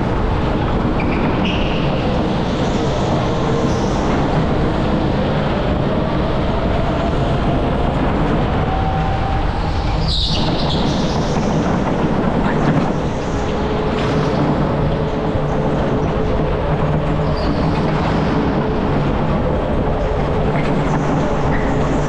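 Go-kart driving around an indoor track, heard from the driver's seat: a steady rolling rumble of wheels and drive with a faint whine that rises and falls with speed. There is a brief high squeal about ten seconds in.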